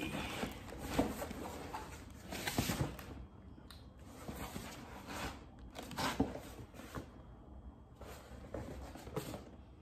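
Cardboard sneaker box being handled and its parts shifted: scattered rubbing and scraping of cardboard with a few light knocks.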